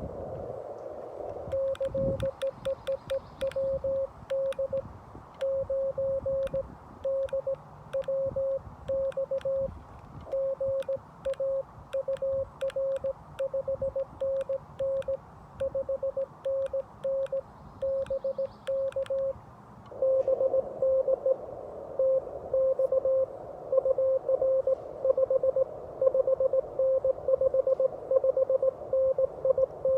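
Morse code sent with a 3D-printed paddle: the Xiegu G90 radio's sidetone, one steady mid-pitched tone keyed in dits and dahs, with a sharp paddle click on many of the elements. About twenty seconds in, the sending stops and the other station's Morse comes back through the receiver: a louder tone at the same pitch over a narrow band of hiss.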